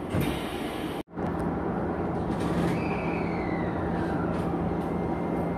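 Shizuoka Railway electric train running, heard from inside the car: a steady rumble with a low hum and a whine that slides down in pitch about three seconds in. The sound cuts out for an instant about a second in.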